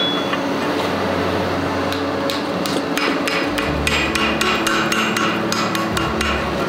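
Hand hammer striking a red-hot hoe blade on a steel anvil, forging the blade's curve against a shaping block. The blows are sparse at first and quicken to a rapid run of metallic strikes from about two seconds in.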